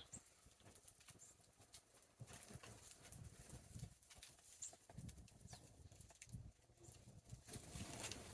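Small birds feeding in snow: faint, irregular taps and clicks, with a few short high chirps.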